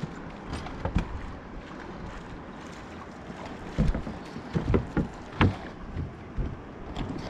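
Wind and water noise on a small fishing boat at sea, with a run of irregular knocks and thumps: one about a second in, then several close together a few seconds later.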